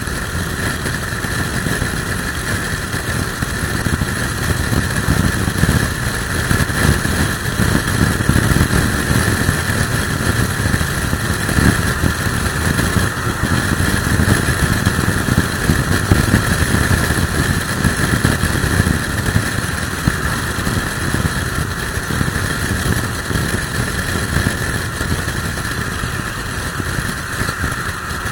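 Motorcycle riding at steady highway speed: a Suzuki Bandit's engine running under a constant, gusting rush of wind on the microphone, with strong crosswind gusts buffeting the rider.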